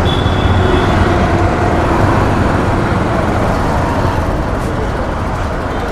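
Hero motorcycle's engine running, with steady road and traffic noise around it.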